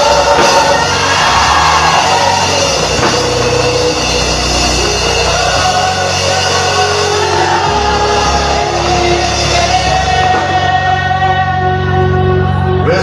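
Live church worship music: a band with drums and long held bass notes, with singing over it.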